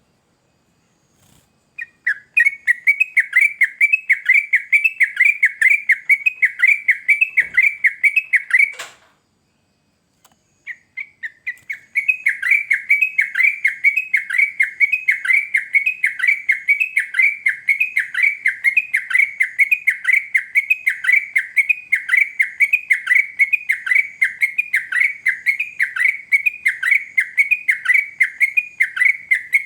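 Yellow-vented bulbul (trucukan) calling in a fast, even run of down-slurred chirps, about four a second. It stops with a sharp click about nine seconds in and starts again a second and a half later.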